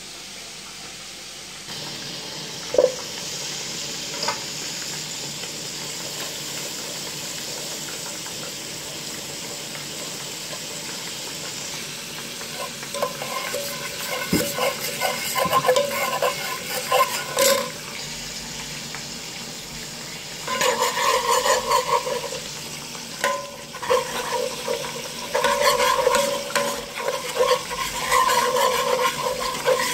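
Butter sizzling in a pan with a steady hiss. Partway through, a metal fork starts stirring and scraping across the bottom of the pan in repeated squeaky strokes, which get louder later on as flour is worked in for a white-sauce roux.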